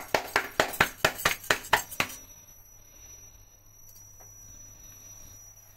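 Hands slapping a ball of bhatura dough flat between the palms, a quick even rhythm of about five slaps a second that stops suddenly about two seconds in. After that only a faint sizzle of hot frying oil remains as the flattened dough is laid into the pan.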